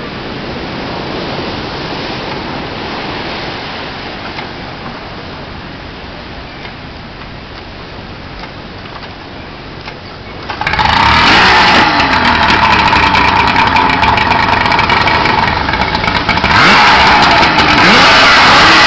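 Even wash of surf, then about eleven seconds in a loud engine cuts in suddenly and runs, its pitch rising and falling as it revs.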